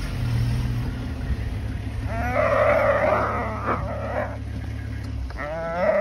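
A nyala calling in distress as a wild dog holds it: two long, wavering cries, about two seconds in and again near the end. A vehicle's engine idles low underneath and stops about five seconds in.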